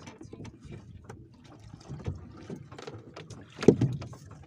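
Wet fishing net being hauled by hand over the side of a small boat: water splashing and dripping, the net rustling and knocking against the hull in quick irregular clicks, with one louder thump about three-quarters of the way in.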